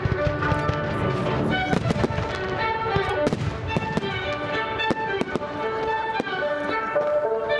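Fireworks going off in many quick sharp bangs, several a second, over loud music played with the display.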